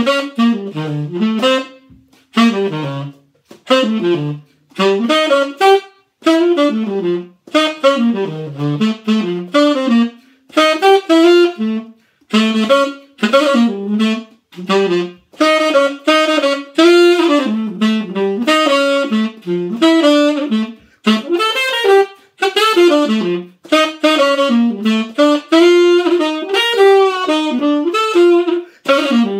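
Unaccompanied jazz saxophone improvisation in quick, rhythmic phrases with short breaks for breath between them. The lines are built on the chord tones of E-flat seventh and D minor seventh, alternating.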